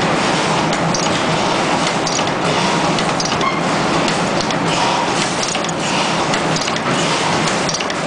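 Steady machine noise from a terminal crimping machine and the surrounding factory machinery running, with faint scattered ticks.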